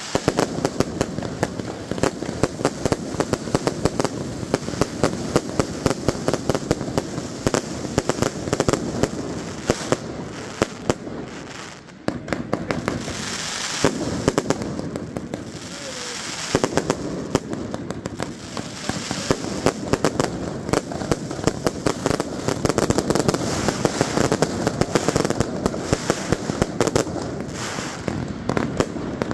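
A dense, continuous barrage of fireworks and firecracker bangs, many a second, with a brief lull about twelve seconds in.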